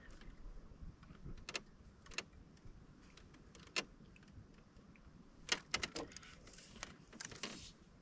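Faint, scattered clicks and light rattles of fishing rods and reel being handled in a wooden boat. A quick run of clicks comes about five and a half seconds in, and a short rattle follows near the end.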